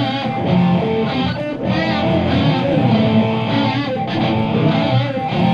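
Live rock band playing a loud instrumental passage between sung lines, with electric guitar to the fore.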